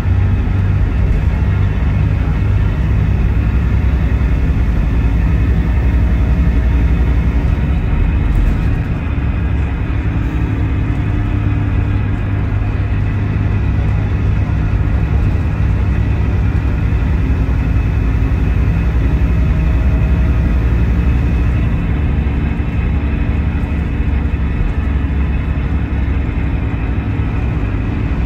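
Scania DC9 five-cylinder diesel engine of a Scania K320IB coach running steadily. The engine note drops about eight seconds in, then holds steady.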